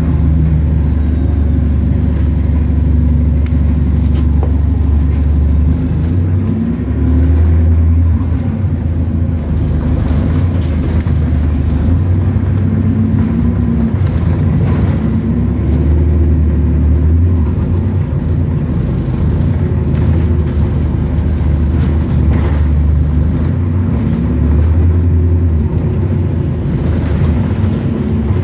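Bus diesel engine and drivetrain running on the move, heard from on board as a loud low drone that rises and falls several times with changes in speed and gear.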